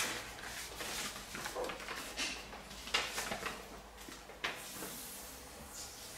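Handling noises: a few sharp knocks and clatters, the clearest at the very start, about three seconds in and about four and a half seconds in, amid softer rustling.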